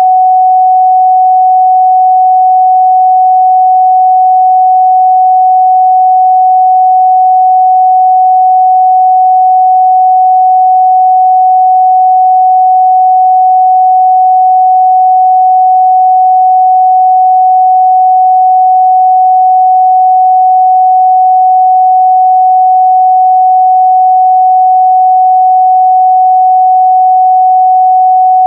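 A pure 744 Hz sine-wave test tone, held steady and loud with no change in pitch or level.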